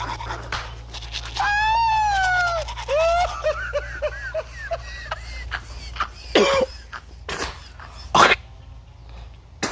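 A person coughing while brushing teeth. A long wavering vocal noise and a string of short choked sounds come first, then two loud, sharp coughs in the second half.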